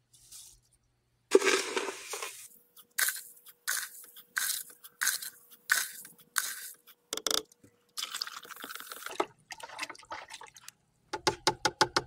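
A plastic scoop digs into a tub of urea granules and pours them into a bucket of acid solution, over and over, to neutralize the nitric acid: a string of gritty scrapes and pours, some longer. Near the end there is a quick run of clicks.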